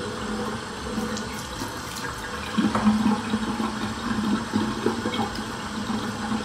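Bathroom sink faucet running steadily, water splashing into the basin, with a few light clicks and knocks of handling.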